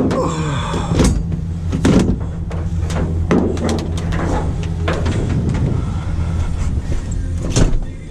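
Pickup truck door opening with a clunk over a steady idling engine, followed by several knocks and a louder thump near the end as a flat-screen computer monitor is handled and set down in the truck bed.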